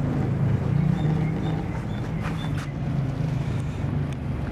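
A vehicle engine running steadily at idle, a low, slightly wavering drone, with a couple of faint clicks a little over two seconds in.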